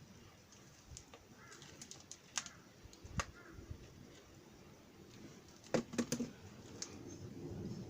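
A few sharp, scattered metal taps and clinks, with a quick cluster of them about six seconds in, over a faint background.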